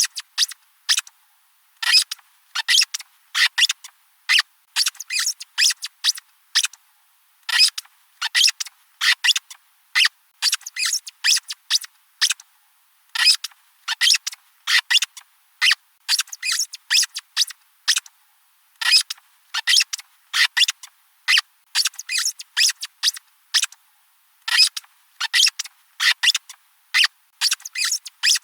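Rubber squeaky dog toy being squeezed over and over, short high squeaks in quick uneven runs of two to five with brief gaps between.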